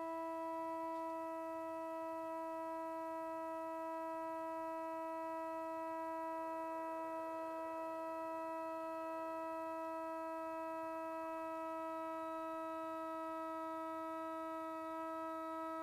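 Shofar blown in one long, steady held note.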